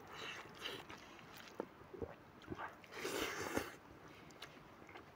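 Close-up eating sounds of a man chewing a mouthful of rice and smoked pork: soft wet smacks and clicks, with a longer, louder rustling sound about three seconds in.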